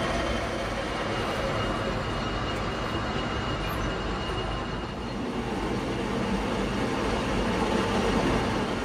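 Manual metal lathe running, its cutting tool turning a steel shaft, a steady mechanical drone with a faint whine over it in the first half.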